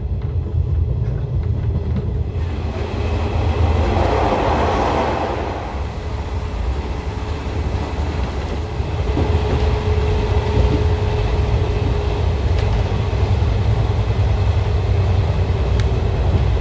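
JNR 113 series electric train running, a loud steady low rumble. A rush of noise swells and fades about four seconds in, and a faint steady whine comes in around nine seconds in and holds.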